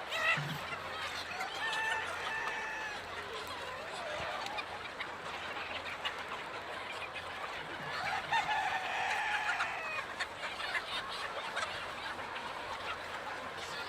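Flock of country chickens clucking and calling together in a dense, continuous chorus, with a louder, longer call about eight seconds in.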